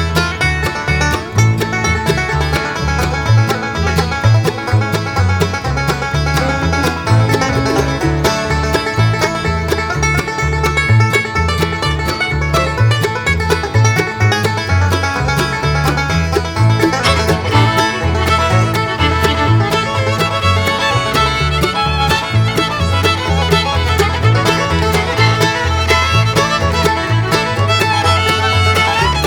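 Upbeat bluegrass background music with banjo, guitar and fiddle over a steady bass beat.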